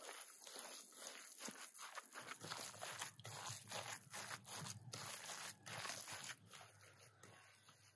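Hand squeezing and kneading minced meat filling with chopped onion and diced vegetables in an enamel bowl: a run of short, irregular wet squelches.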